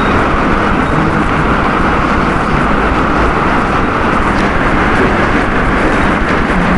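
Steady, loud rushing background noise with no distinct events.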